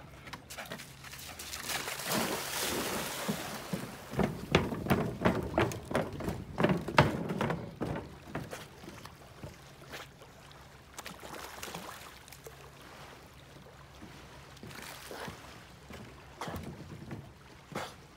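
Bull terrier swimming in a lake, paddling and splashing through the water. A run of sharp, loud splashes and knocks comes from about four to eight seconds in, followed by quieter lapping and splashing.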